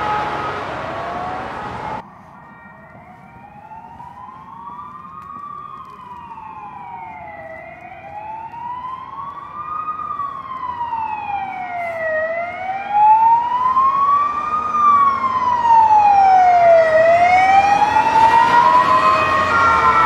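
Ambulance siren in a slow wail, its pitch rising and falling about every five seconds and growing louder as it approaches. A different, denser siren recording cuts off suddenly about two seconds in.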